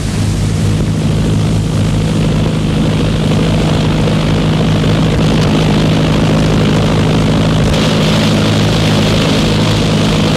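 Propeller plane's engine droning steadily in flight, heard through the hiss of an old film soundtrack.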